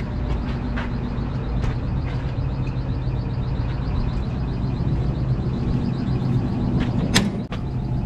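A steady low mechanical hum, with scattered light clicks and one sharp knock about seven seconds in.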